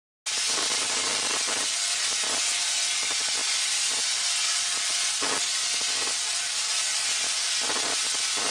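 Electricity sound effect: a steady crackling hiss with irregular sharp crackles, starting suddenly a third of a second in.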